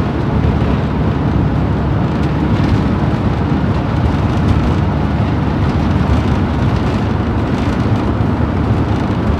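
Motorhome driving at road speed on an asphalt road: steady low road noise from the tyres and engine.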